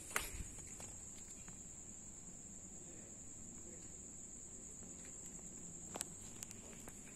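A steady, high-pitched insect trill runs without a break, with a sharp click just after the start and another about six seconds in.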